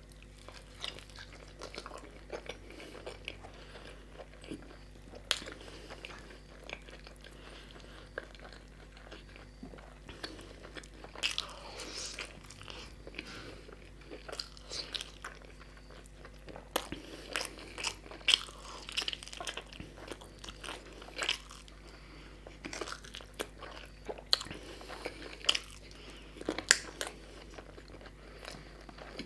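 A person biting and chewing puri (fried Indian bread) with curry, heard close up: irregular sharp crunches and chewing sounds, with louder clusters in the second half.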